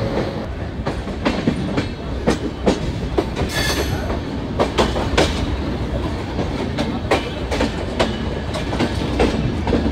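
Passenger train coach wheels running over rail joints and points with an uneven clickety-clack over a steady rumble, as the express runs into the station. A brief high-pitched metallic squeal comes about three and a half seconds in.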